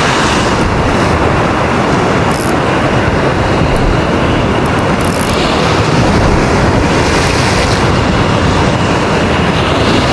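Steady, loud rush of wind on the microphone mixed with surf, with two short high hisses about two and a half and five seconds in.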